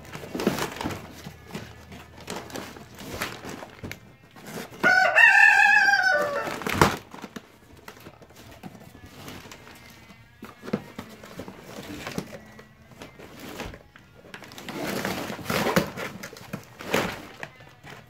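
Christmas wrapping paper crinkling and tearing in repeated bursts as a monkey rips open a gift box. About five seconds in, a loud bird call lasting about two seconds, falling slightly in pitch, rises above the rustling.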